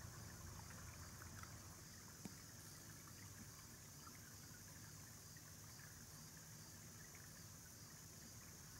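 Near silence: a faint steady hiss, with a few faint soft ticks in the first couple of seconds.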